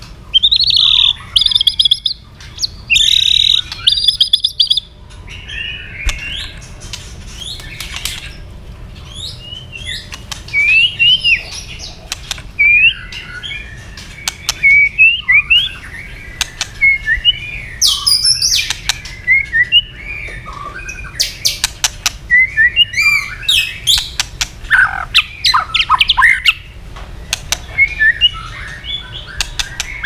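White-rumped shama in full song: harsh buzzing notes for the first few seconds, then a fast, varied run of whistled phrases broken by sharp clicks.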